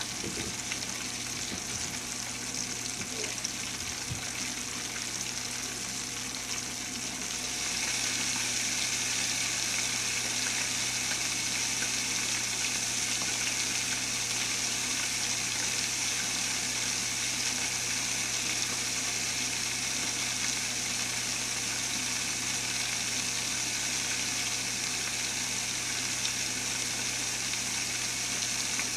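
Chicken pressure-frying in hot oil inside a stovetop pressure cooker: a steady sizzling hiss that steps up louder about seven and a half seconds in, while the cooker is building up pressure.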